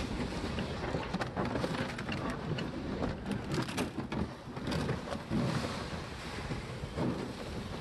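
Wind buffeting the microphone over the rumble and scrape of a plastic sled towed across snow, dry grass and brush behind a tracked robot vehicle, with a run of clicks and knocks in the middle.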